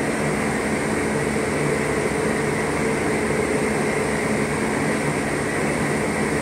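Steady hum of ventilation fans: an even whooshing noise with a few constant tones running through it, unchanging throughout.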